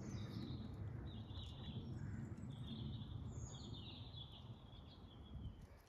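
Small songbirds chirping: several short, high twittering phrases in a row, over a steady low background rumble.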